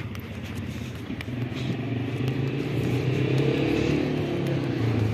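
An engine running with a low, steady hum that gets louder from about a second in.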